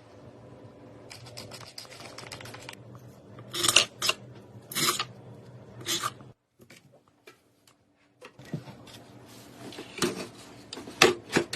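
Computer hardware being handled: rubbing and scraping with several sharp clicks and knocks, the loudest about four seconds in and again near the end, with brief pauses between.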